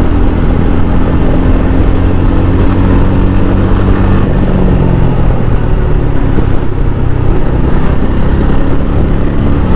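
Yezdi Adventure motorcycle's single-cylinder engine running on the move, with road and wind noise. About four seconds in the engine note drops as the bike eases off and slows.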